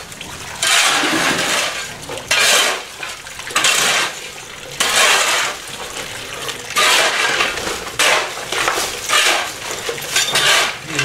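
Water from a tank tap splashing as a man scoops it onto his face and hands, in repeated splashes about one every second or so, over the thin stream running from the tap.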